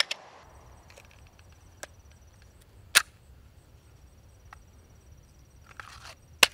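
Sharp metallic clicks and snaps of a mud-fouled Glock 43X being worked by hand, the loudest two about three seconds in and near the end: stoppages being cleared on a pistol jammed by mud, with live rounds sticking in the chamber.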